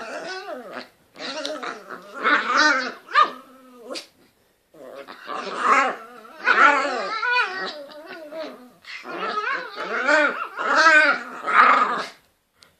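Two small dogs play-fighting, growling at each other in bursts with short breaks between.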